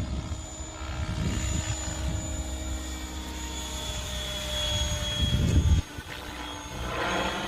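Electric Mikado Logo 690 RC helicopter flying: a smooth, steady whir and whine from its motor and rotors. A low rumble under it cuts off suddenly about six seconds in.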